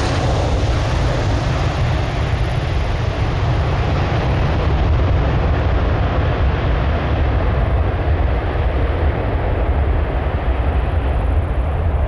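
Boeing 747-400F freighter's four jet engines and airframe rolling out along the runway just after touchdown: a loud, steady, deep rumble with a hiss above it.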